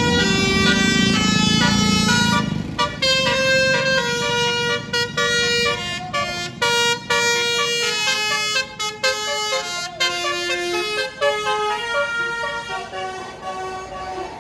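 Tour bus's basuri musical horn playing a tune of short, stepped, pitched notes with brief gaps between them as the bus passes. A low rumble lies under the first two seconds.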